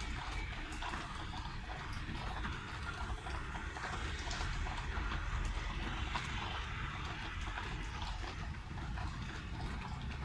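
Steady rain falling, with many close drops pattering and dripping irregularly on hard surfaces over a low, steady rumble.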